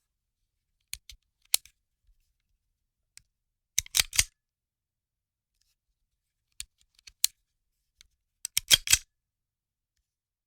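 Handgun handling: metallic clicks and short rattling clusters as the pistol's parts are worked, single clicks scattered among silence and two quick runs of clicks about four seconds in and near the end.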